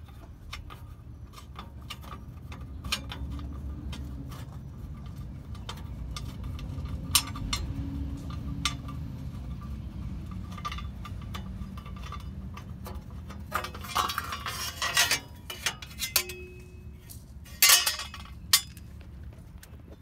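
Irregular metallic clinks and clicks of hand tools and a thin sheet-metal heat shield being worked loose, with louder clanks about 14 and 18 seconds in, over a low steady rumble.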